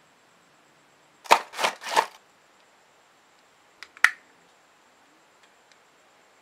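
Small plastic model-kit parts handled and snapped together: three quick scraping rustles a little over a second in, then a light click and a sharp plastic snap about four seconds in as two parts are pressed into place.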